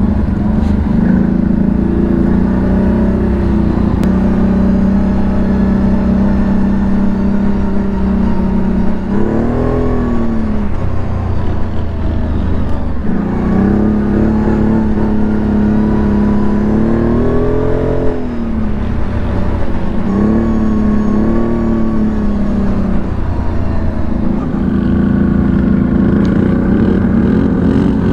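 CFMoto CForce 1000 ATV's V-twin engine running under load. Its pitch holds steady for long stretches and drops and climbs back several times, as the throttle is eased and opened again.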